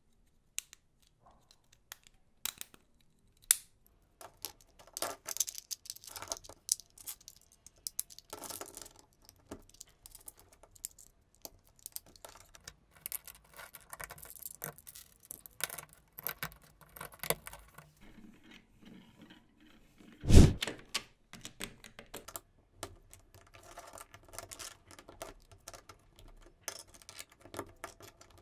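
Plastic LEGO Technic parts clicking and clattering as they are handled, pins pushed into beams and pieces pressed together on a baseplate. One louder thump comes about two thirds of the way through.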